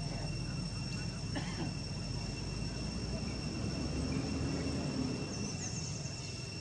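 Steady high-pitched insect drone, one unbroken tone with its overtone, over a low rumble.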